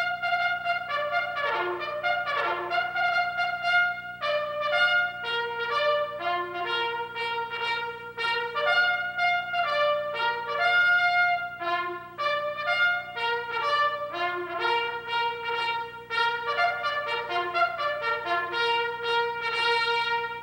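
Solo trumpet playing a melody, one note after another with short held notes and brief breaks; it stops sharply at the end.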